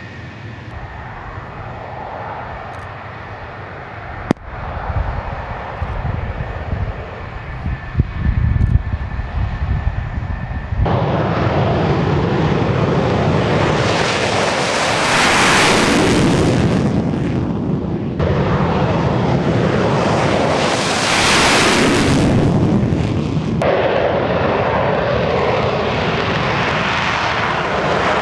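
Military fighter jet engines. First a steady high whine over a low rumble, with a couple of sharp knocks, as a jet taxies at low power. Then about a third of the way in the sound jumps to a loud jet roar at high power that swells and fades twice, with sudden changes where the footage is cut, as jets run up and take off.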